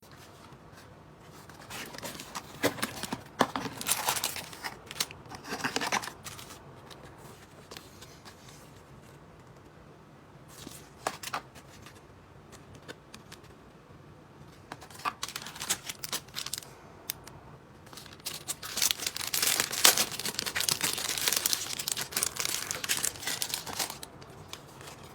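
Packaging being handled and opened: crinkling, rustling and tearing in several irregular spells, with a longer, louder spell of crinkling near the end.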